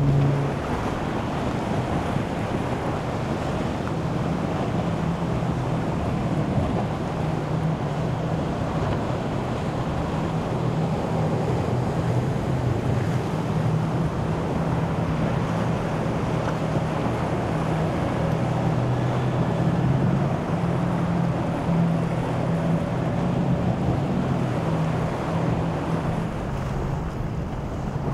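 Boat engines running with a steady low hum over the wash of waves in rough water, with wind buffeting the microphone.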